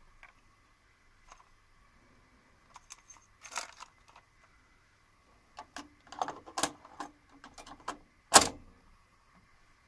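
Plastic cassette being handled and loaded into the open cassette well of a Technics RS-671 cassette deck: light clicks and short plastic rattles, with the loudest sharp click about eight seconds in as the cassette goes in.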